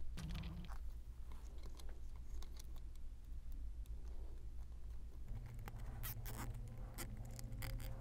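Faint scratching and scattered light clicks of a nylon zip tie being threaded around Ethernet cables and pulled through its head, with a few sharper clicks about six seconds in, over a low steady hum.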